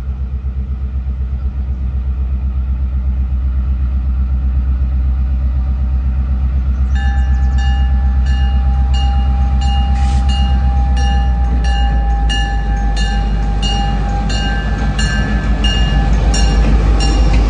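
An EMD GP7 diesel locomotive runs with a steady low engine drone that grows louder as it approaches. From about seven seconds in, its bell rings steadily, a little under two strikes a second.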